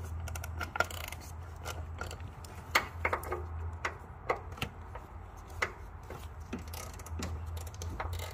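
Hand ratchet clicking and metal tools knocking in irregular short bursts as suspension nuts are cracked loose, over a low steady hum.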